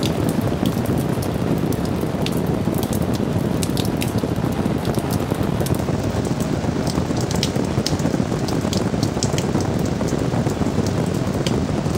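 Heavy rain falling steadily, with a dense patter of individual drops striking a surface close by.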